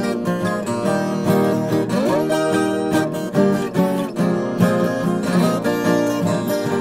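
Closing music played on acoustic guitar, plucked and strummed notes with a few sliding notes.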